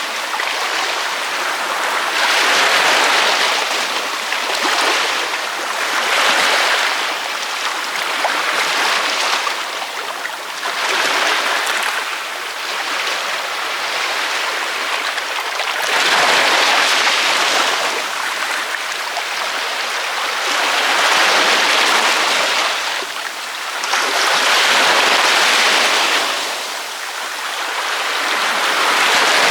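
Ocean waves breaking on a beach: a continuous surf hiss that swells and falls back every two to four seconds as each wave comes in.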